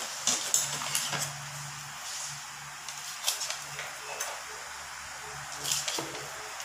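A large knife blade cutting through twisted plastic rope on a flat stone: short scraping clicks and knocks of the blade against the stone, in a few clusters, over a faint low hum.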